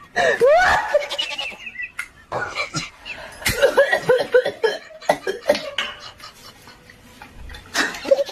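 A person laughing in several bursts of giggles with short pauses between, quieter for a stretch near the end.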